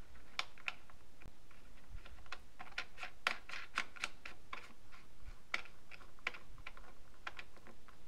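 Quick, irregular small clicks and taps of fingers turning and tightening a loudspeaker's binding-post caps down onto a jumper wire, thickest in the middle.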